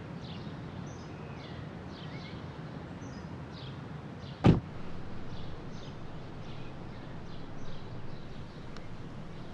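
A car door shuts once with a sharp slam about four and a half seconds in, over steady outdoor ambience with small birds chirping.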